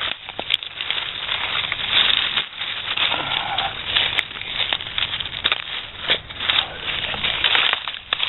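Dry leaf litter, twigs and brush rustling and crackling close to the microphone as a hand rummages through the forest floor, in irregular bursts and snaps.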